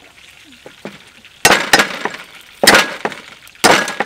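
Cleaver chopping down onto a thick round wooden chopping block, three loud sharp chops about a second apart, cutting soaked red chilies.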